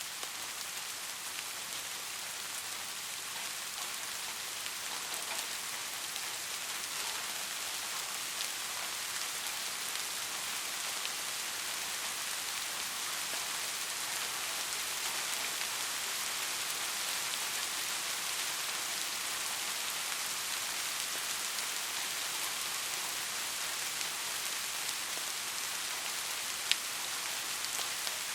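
Steady rain falling, an even hiss of many drops that grows slightly louder over the first half. A single sharp tick of a drop striking something sounds near the end.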